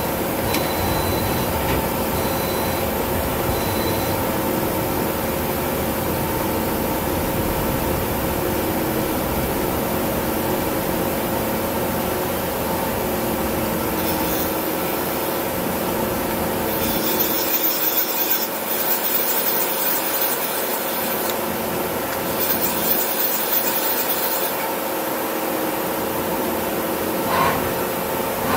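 Miyano BND-51S CNC turn-mill lathe running, a steady mechanical hum with fixed tones under a rasping, grinding noise. About halfway through, a loud hiss comes in twice, for several seconds each time.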